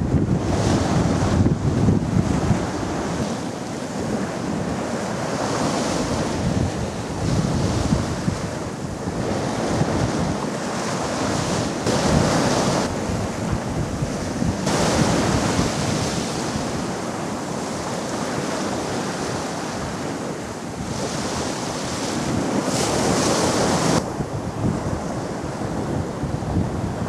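Choppy sea washing and breaking, its hiss swelling and fading every few seconds, with wind rumbling on the microphone.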